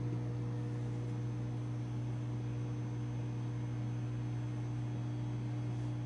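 Hommer 20-litre, 700-watt microwave oven running mid-cycle: a steady low hum with a faint even hiss.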